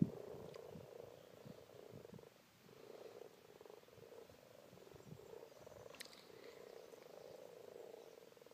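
A chorus of common frogs gathered at a breeding pond, many soft purring croaks overlapping into a steady low murmur. It is faint, dips briefly a couple of seconds in, and has one faint click about six seconds in.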